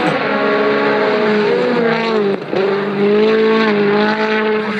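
Rally car engine running hard at high revs, its pitch rising and falling. It drops off briefly about two seconds in, then pulls strongly again.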